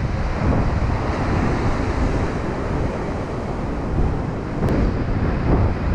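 Wind blowing across the microphone in steady gusts, over the wash of ocean surf.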